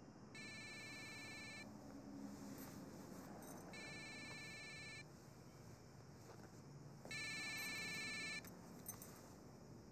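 Mobile phone ringing: three rings of an electronic ringtone, each about a second and a half long and a few seconds apart, the last near the end, before the call is answered.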